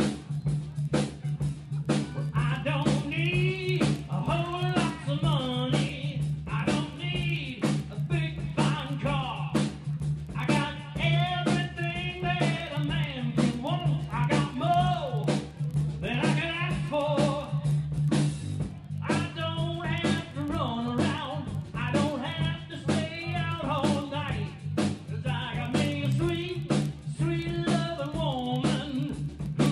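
A live band playing a song: sung vocals over drums and a steady bass line.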